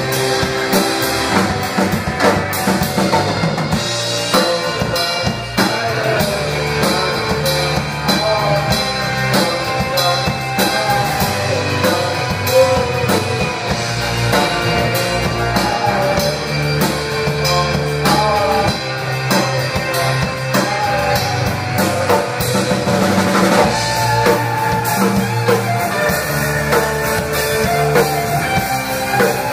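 Alternative rock band playing live: a drum kit keeps a steady beat under electric guitar and bass.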